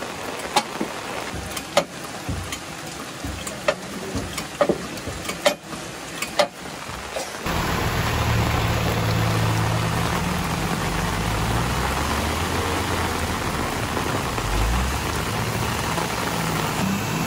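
Heavy rain, with large drops splatting close by in sharp single taps. About seven seconds in, the sound changes to steadier, louder rain, and a loaded Tata lorry's diesel engine runs low underneath it.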